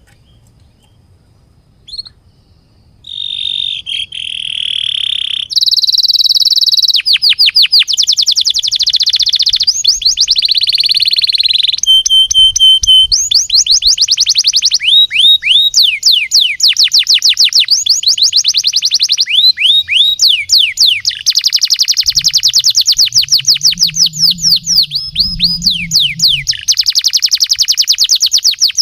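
Domestic canary singing a long, loud song of fast rolling trills, each made of rapidly repeated falling notes, with phrases that shift speed and pitch. A single chirp about two seconds in, then the song starts about three seconds in and runs on without a break.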